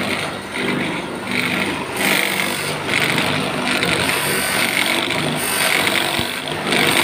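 Motor-driven polishing wheel running with a monel ring held against it for the final shine: a steady grinding hiss that swells and eases as the ring is worked against the wheel.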